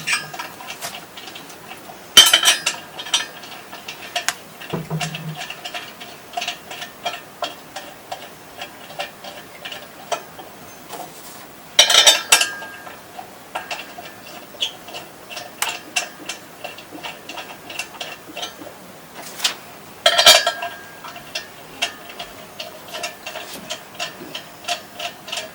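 Steel bolts and hand tools clinking and clicking against the metal pump adapter and motor as four bolts are inserted and run in, with louder metal clanks three times, about 2, 12 and 20 seconds in.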